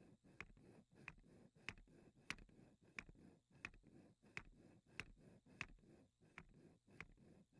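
Wooden replica of Bessler's overbalanced wheel turning, its mechanism clicking evenly about one and a half times a second over a faint background hum.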